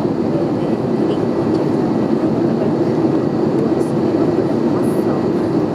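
Steady cabin drone of an Airbus A320 in flight, its engines and airflow heard from inside the passenger cabin, with a faint steady whine above it.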